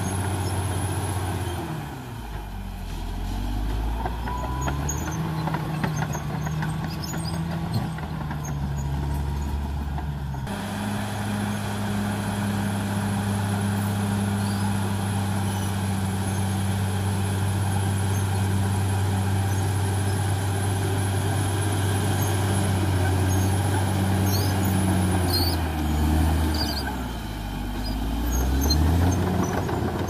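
Caterpillar D6R XL bulldozer's diesel engine running as it pushes a blade-load of soil. Its pitch drops and climbs back twice, a couple of seconds in and again near the end.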